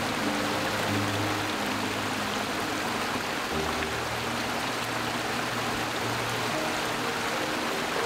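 Small rocky forest stream running with a steady rush of water, under background music of slow held low chords.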